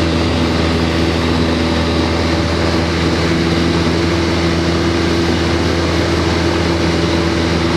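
Light aircraft's piston engine and propeller, heard from inside the cabin: a loud, steady drone that holds one pitch.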